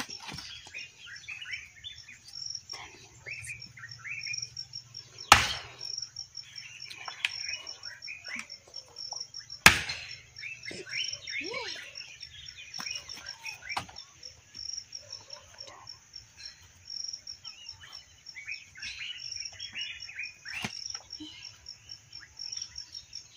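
Axe chopping firewood: two sharp blows, about five and ten seconds in, with a fainter knock near the end. Insects trill steadily and birds chirp throughout.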